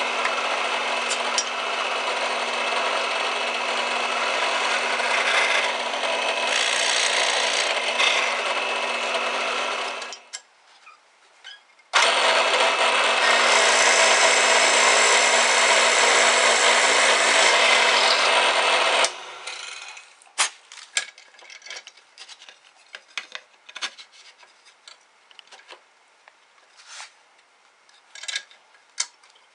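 Drill press running with a Forstner bit boring into oak, a steady motor hum with the hiss of cutting, in two runs of about ten and seven seconds with a short stop between. After the second run the motor stops, leaving scattered light clicks and rustles of the workpiece and chips being handled.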